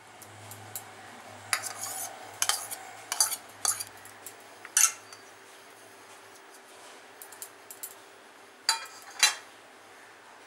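Steel spoon clinking against a stainless steel bowl while curd is spooned onto raw chicken: a run of sharp clinks over the first five seconds, then two more near the end.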